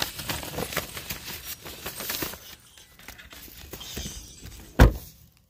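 Rustling and clicking handling noise as a phone camera is moved about in the dark, then one loud thump near the end.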